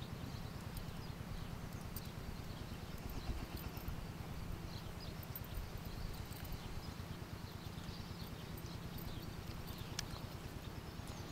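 Faint clicks of a hook and lure being worked free of a caught pike by hand, with one sharper click about ten seconds in, over a low steady rumble.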